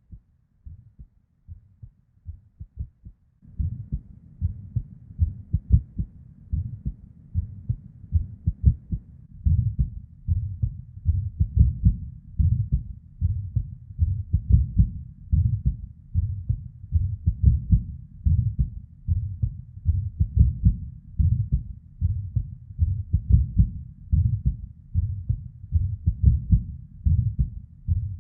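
A woman's heartbeat recorded close against the body, beating irregularly with premature (ectopic) beats. A low whooshing murmur of blood flow runs between the beats and becomes louder about three and a half seconds in.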